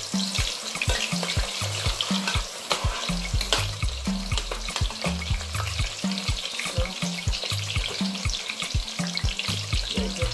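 Chopped onions sizzling and crackling in hot oil in a large steel pot, stirred now and then with a metal spatula. The crackling is steady and dense throughout.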